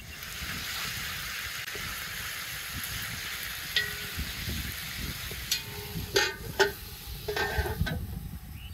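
Chicken pieces frying in hot oil in a large black pan, sizzling steadily. In the second half a wooden spatula scrapes and knocks against the pan several times, and a cast-iron lid clanks onto it near the end.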